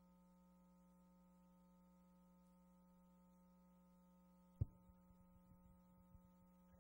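Near silence over a steady electrical hum from the sound system. About two-thirds of the way in comes a single sharp thump, followed by a few faint low bumps.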